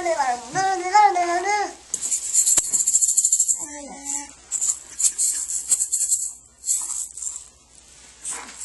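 Handheld toy rattle shaken in repeated bursts of rattling, from about two seconds in. Before that, a high voice sings a short sliding phrase.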